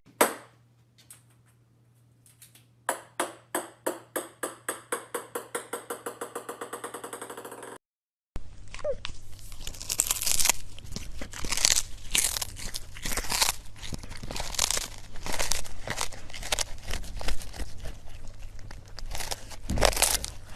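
First, a small ball bouncing on a hard floor: a quick run of bounces that speed up slightly and fade, then cut off sharply. Then a cat biting and chewing a small whole fish, with short chewing sounds about every second, the loudest near the end.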